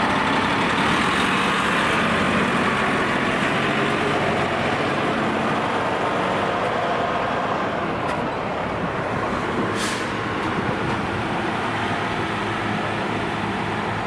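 Fire ladder truck's diesel engine running as the truck rolls slowly past and away, the sound fading a little. A brief hiss of air comes about ten seconds in.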